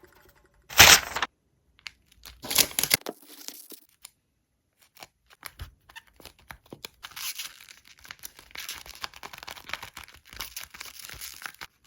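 Paper being handled: a short, loud tearing rasp about a second in and another near three seconds, then a long run of crinkling and crackling.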